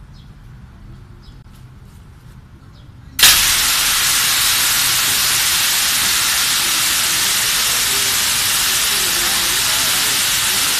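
Fire sprinkler head discharging during a flow test: a sudden onset about three seconds in of a loud, steady hiss of water spraying out under pressure, which then holds evenly.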